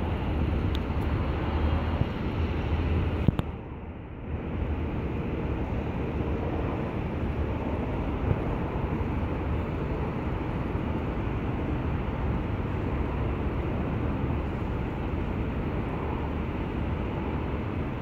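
Steady low rumble and hiss of outdoor background noise, with a single sharp click about three seconds in and a brief dip in level just after it.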